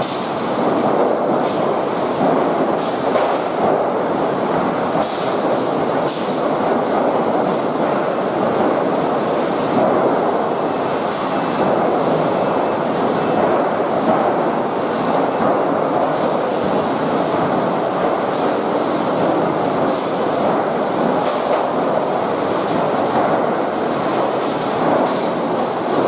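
Automated dual-fork lumber stacker and its chain and roller conveyors running: a steady mechanical rattle and rumble with frequent sharp clicks and clanks.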